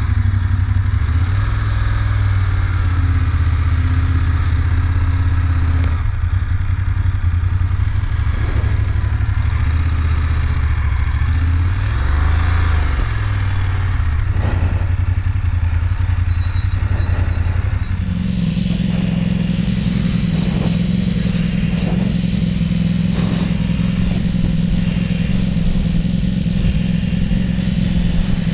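BMW F750GS parallel-twin engine, just started, running at low revs with the note wavering as the bike pulls away from the pump. About eighteen seconds in the engine note steps up and holds higher as the bike rides off. A few knocks are heard along the way.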